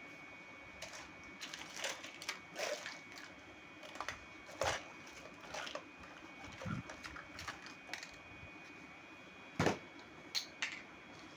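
Small plastic toy kitchen pieces handled: irregular clicks, taps and short rustles as parts are picked up, set down and unwrapped, with one louder knock near the end.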